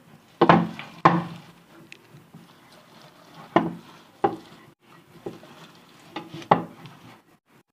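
Hand-turned meat mincer grinding chopped onion: sharp knocks and clatter of the machine, several of them in pairs less than a second apart.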